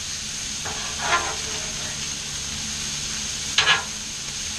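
Diced potatoes, zucchini and onions sizzling steadily on a Blackstone flat-top griddle while metal spatulas stir them. The spatulas scrape across the griddle once about a second in and twice in quick succession near the end.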